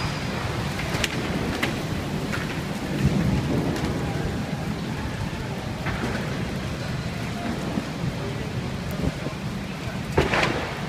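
Heavy rainstorm with strong wind: a steady downpour rush with a deep rumble underneath. A few sharp clicks come through in the first few seconds, and a louder knock comes near the end.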